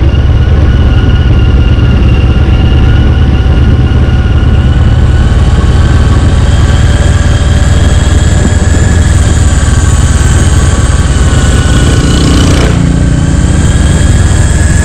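CFMoto 400NK motorcycle's parallel-twin engine running at a steady pitch while ridden along a dirt road, under a constant heavy low rumble.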